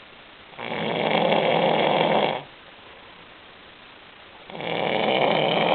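A person snoring: two long snores, the second starting about four seconds after the first, each drawn out for close to two seconds, with quiet gaps between.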